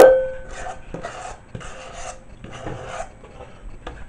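A spatula scraping soft whipped mascarpone cream out of a stainless-steel stand-mixer bowl in a series of short scraping strokes. It opens with a sharp metallic clink that rings briefly, the loudest moment.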